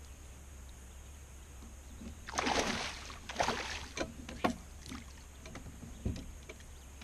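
Water splashing in a few short bursts, the first and longest about two seconds in, over a low steady hum.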